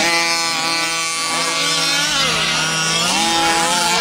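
Several large-scale gas-powered RC cars' small two-stroke engines buzzing at once, each at its own pitch, revving up and down as they race past; one engine holds a steady note and then revs up about three seconds in.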